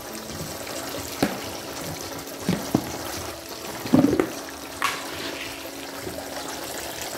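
Koi pond with water trickling steadily, broken by several short splashes and sucking sounds from koi mouthing at the surface around a hand. The loudest cluster comes about four seconds in.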